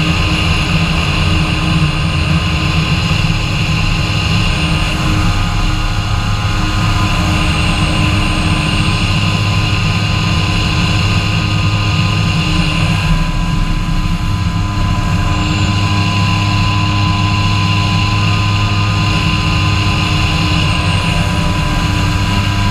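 Kawasaki Ultra 150 jet ski's two-stroke engine running steadily at a slow cruise, its note shifting slightly about halfway through.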